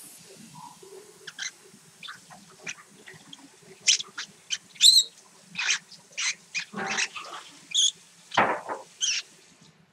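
Lovebird giving a string of short, sharp, high-pitched chirps and squeaky calls at irregular intervals, loudest about five seconds in, with a harsher, lower call near the end.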